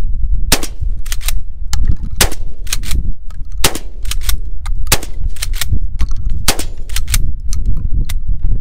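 Gunfire: a long string of about twenty sharp shots, spaced unevenly at a semi-automatic pace, some louder and some fainter, over a steady low rumble.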